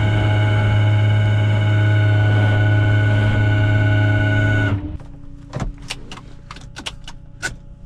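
Flatbed tow truck's hydraulic winch running with a steady whine as it pulls a car up the bed, cutting off suddenly about five seconds in. After that come a few sharp clicks.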